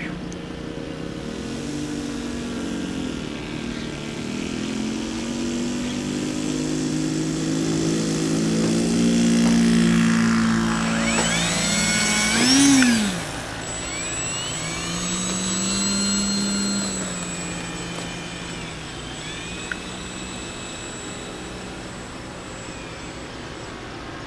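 Radio-controlled model biplane's engine running at high revs during takeoff and low flying. It grows louder as the plane comes close, and its pitch rises and falls as it passes, most sharply about halfway through, then fades as the plane flies off.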